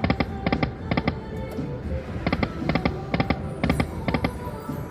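Slot machine game sounds: a steady electronic music bed with quick clusters of sharp clicks about twice a second, pausing briefly partway through.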